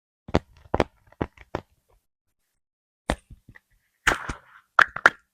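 Small plastic slime jars being set down and tapped on a wooden surface: a series of sharp knocks and clicks, a handful in the first two seconds, a few more around the three-second mark, and a quicker cluster near the end with a brief ring on the last ones.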